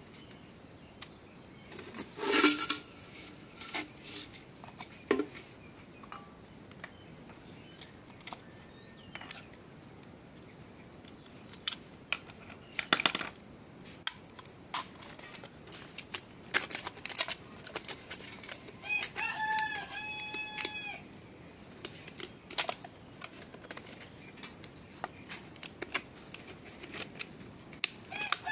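A rooster crows in a stepped, drawn-out call about two-thirds of the way in, and starts crowing again at the very end. Scattered sharp clicks and knocks run throughout, with a louder burst of sound near the start.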